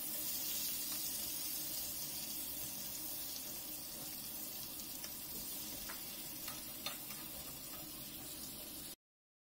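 Fish pieces sizzling as they shallow-fry in oil in a karai, with a few light scrapes and taps of a steel spatula against the pan. The sound cuts off suddenly near the end.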